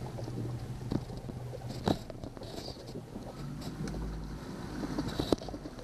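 Small boat's motor running slowly at no-wake speed, a steady low hum whose note shifts about halfway through, with water and wind noise. Three sharp knocks stand out, the loudest about two seconds in.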